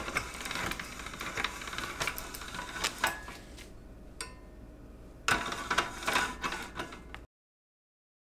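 Hand-cranked stainless steel pasta machine cutting a spinach pasta sheet into fettuccine, its gears and rollers clicking and rattling. The clicking thins out after about three seconds, comes back in a second burst about five seconds in, and cuts off abruptly near the end.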